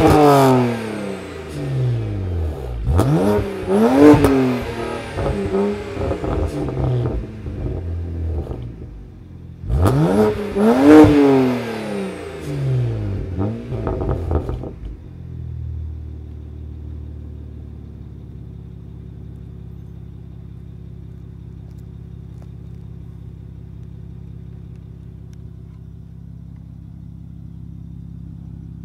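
BMW 335i's N54 twin-turbo inline-six, catless and fitted with a Borla quad exhaust, free-revved at a standstill: the tail of one rev, then two more sharp rev-ups that fall away with a burble. From about halfway through it settles to a steady idle.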